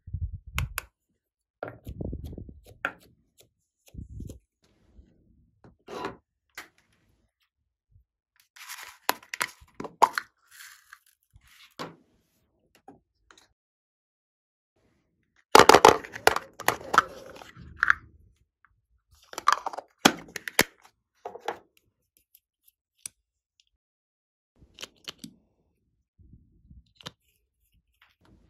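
Small craft items being handled and set down on a tabletop beside a glass dish of slime: scattered clicks, taps and rustles with quiet gaps, busiest and loudest for a couple of seconds a little past halfway.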